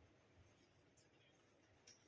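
Near silence: room tone with a few faint small clicks, the clearest just before the end.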